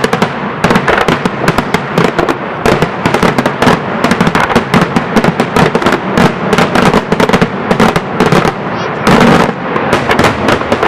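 Daytime fireworks barrage: aerial shells going off in rapid succession as a dense, unbroken stream of loud bangs and cracks, with a short denser, louder stretch about nine seconds in.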